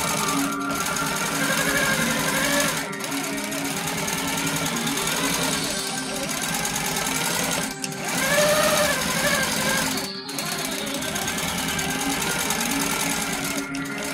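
Baby Lock Coronet longarm quilting machine running steadily, stitching through a quilt as it is guided by hand, with background music playing over it.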